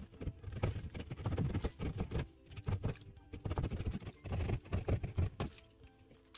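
Hand plasterboard saw cutting through drywall in rapid back-and-forth rasping strokes, stopping about five and a half seconds in.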